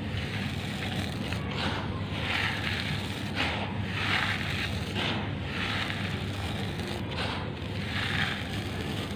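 Handfuls of dark gritty powder crumbling and pouring back onto a pile, a gritty rushing and crunching that swells and fades about once a second with each handful. A steady low rumble runs underneath.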